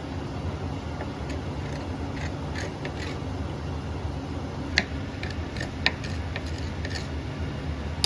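Steady low mechanical hum, with scattered light clicks and two sharper clicks about five and six seconds in.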